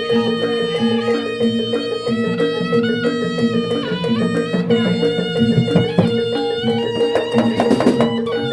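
Live Barongan Blora accompaniment music. A high melody line rich in overtones, sliding between notes, plays over repeating drum patterns and a steady held tone.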